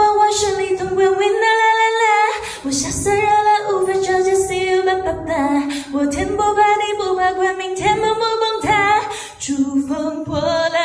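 A woman singing into a handheld microphone, holding long notes that slide in pitch, with short breaks for breath.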